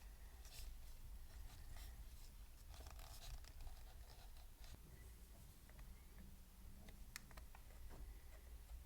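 Faint, light scratching with a few small scattered clicks, like small hand work on a model part; otherwise near silence.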